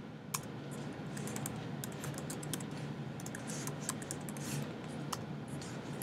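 Typing on a computer keyboard: a quick, irregular run of key clicks, over a steady low hum.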